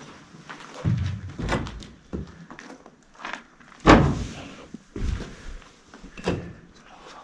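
Irregular footsteps and thuds, about eight of them, the loudest about four seconds in.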